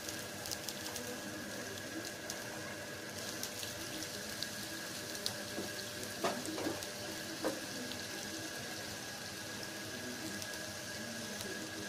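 Chopped onions sizzling in a little hot oil in a nonstick pot: a steady hiss with scattered crackles, and a couple of light knocks past the middle.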